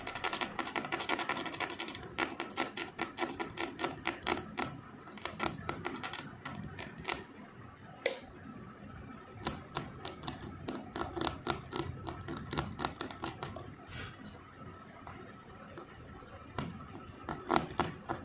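Small metal blade scraping the paint off a cut LED backlight board to bare the copper pads for soldering: quick, irregular scratching strokes, densest in the first couple of seconds, then in short clusters with brief pauses.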